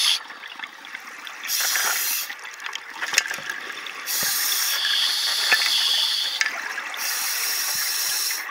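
A scuba diver breathing through a regulator underwater: a hiss of air three times, with bubbling and crackle between the breaths.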